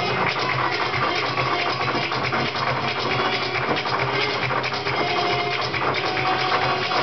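Flamenco dancer's zapateado footwork: rapid, dense stamping and tapping of shoes on the stage, with hand clapping (palmas) and cajón beating along under faint guitar.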